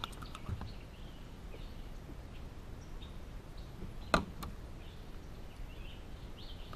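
Quiet open-air ambience with scattered faint high chirps, typical of birds in the trees. A few light clicks come in the first half-second, and one sharp knock about four seconds in, as a just-caught bass is handled on a boat deck.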